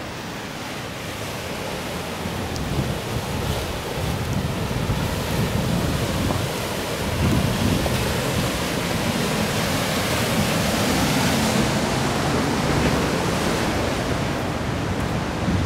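Surf washing and breaking over a rocky shore, with wind buffeting the microphone in low rumbling gusts.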